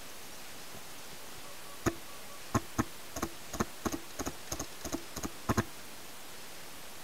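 Paintball markers firing: a quick, irregular string of about fifteen sharp cracks over some four seconds, starting about two seconds in.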